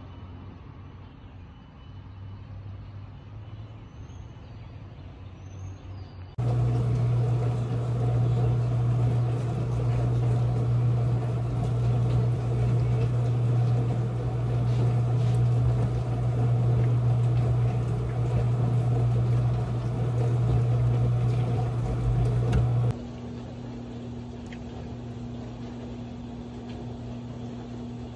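Water running from a kitchen tap into a stainless steel sink while a trout is cleaned: a steady low hum under a rushing hiss. It starts suddenly about six seconds in and cuts off about seventeen seconds later, leaving a quieter steady hum.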